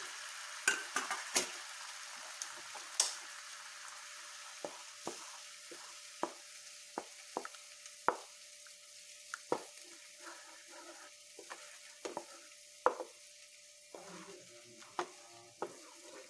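Wooden spoon stirring coconut paste into a banana curry in a pan, knocking against the pan irregularly about once a second. The hot pan hisses at first, and the hiss dies away over the first few seconds.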